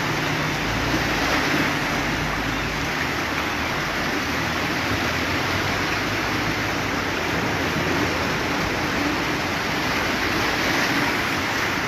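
Fast-running floodwater rushing steadily across a street, with the low rumble of vehicles wading through it, strongest in the first few seconds.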